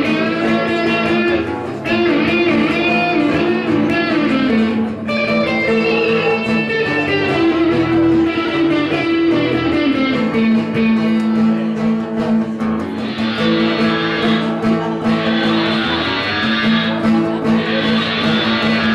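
Live rock band guitar passage: an electric guitar plays sustained melodic lines over a strummed acoustic guitar.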